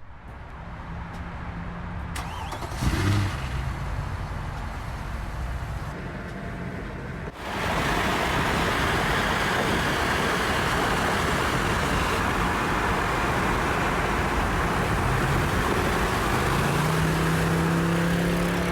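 Mercedes E63 AMG driving: engine and road noise that get suddenly louder about seven seconds in and then hold steady, with the engine note rising near the end.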